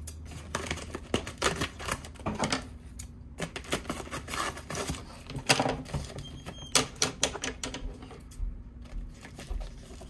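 Scissors snipping and a plastic mailer bag crinkling as it is cut and pulled open: a run of sharp, irregular clicks and crackles.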